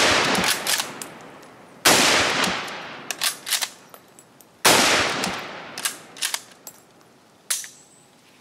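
Three shots from a Chinese Type 53 Mosin-Nagant carbine (7.62×54mmR): one right at the start, one about two seconds in and one nearly five seconds in, each ringing out and echoing away. Between shots there are metallic clacks of the bolt being worked, a bolt the owner says still hangs up slightly on the downward stroke, which he puts down to the extractor.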